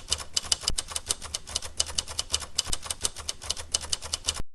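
Rapid, even clicking, about ten clicks a second, over a low hum. It cuts off abruptly near the end.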